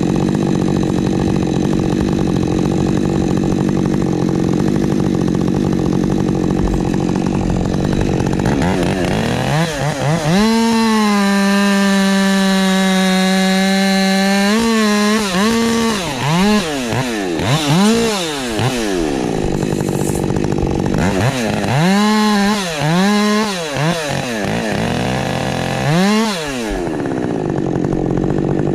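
Husqvarna 550 XP Mk II two-stroke chainsaw running at a lower steady speed, then revved up about ten seconds in and held at high revs for about four seconds. It then gives a string of throttle blips, each rising and falling in pitch, before settling back.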